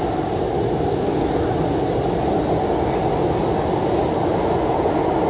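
Steady running noise of an MTR IKK-Train (SP1900-type electric multiple unit) heard from inside the car: an even rumble of wheels on rail and running gear, with no distinct knocks or squeals.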